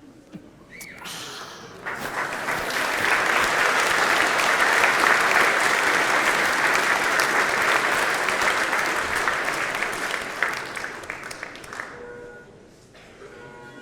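Audience applauding: a large crowd clapping that swells about two seconds in, holds steady, then dies away near the end.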